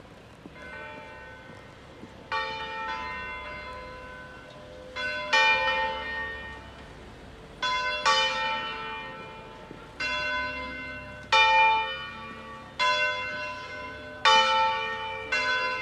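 Two church bells of San Rocco swinging in full-circle 'distesa' ringing, striking in alternation at uneven intervals, each stroke ringing on and fading. The strokes start faint and grow louder over the first few seconds as the bells gain swing. This is the Lenten weekday ring calling to the evening Mass.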